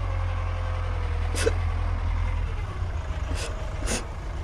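A woman sobbing, with a faint wavering cry early on and three sharp gasping breaths, over a steady low rumble.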